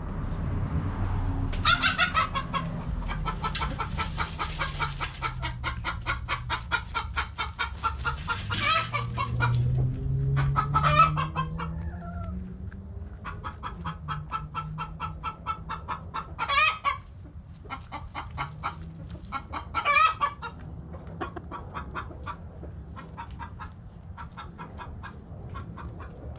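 Backyard chickens clucking in rapid, steady runs, with a few short, louder calls standing out.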